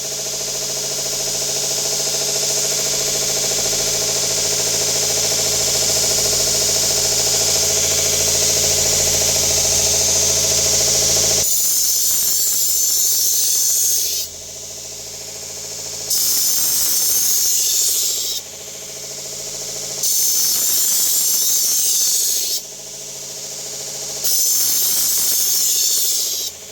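Vevor 1x30 belt grinder running with a kitchen knife blade held against a coarse 120-grit zirconia belt: a steady loud grinding hiss over the motor's hum for about eleven seconds. Then the hiss comes in four shorter passes of two to three seconds each, with brief gaps where the grinder runs on its own.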